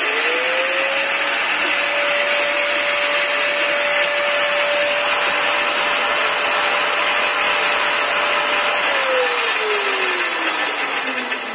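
Electric angle grinder, guard removed and an enamel pot mounted on its spindle as a home-made sugar-powder mill, switched on with no blade fitted: the motor whines up to full speed within a second and runs steadily with a strong fan hiss. About nine seconds in it is switched off and winds down with a falling whine.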